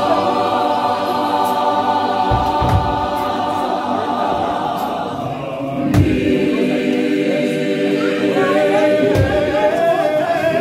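Gospel choir singing a cappella, holding long chords, with a new phrase starting about halfway through. A low thump sounds about every three seconds.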